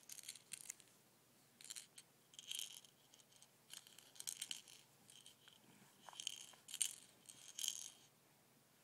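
A soft Tigger baby rattle toy being shaken by hand, rattling in a series of short bursts, about eight shakes with brief pauses between them.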